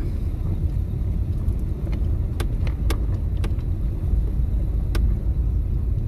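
Cabin noise of a car driving slowly on a rough dirt road: a steady low rumble of tyres and engine, with a few sharp knocks and clicks from stones and bumps.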